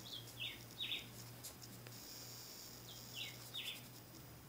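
Faint bird calls: short falling chirps in two groups of three, about three seconds apart, over a steady low hum.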